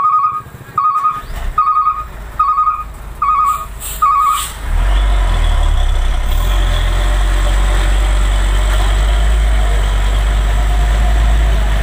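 A truck's reversing alarm beeps six times, a little more than one beep a second. Then a heavy truck engine runs hard and steady with a low rumble as the box truck strains across the oil-slicked road.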